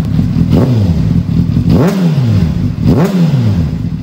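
Honda CBR600RR inline-four sport bike engine being blipped through a newly fitted aftermarket exhaust: three quick throttle blips about a second apart, each revving up sharply and falling back toward idle.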